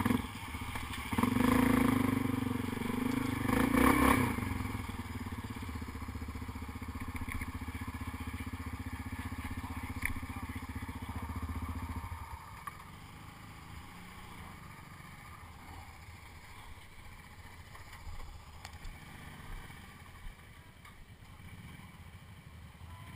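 ATV engine revving hard for a few seconds, then running steadily. About halfway through it drops to a low idle.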